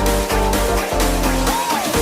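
Electronic background music with a steady beat and a synth note that bends up and back down near the end.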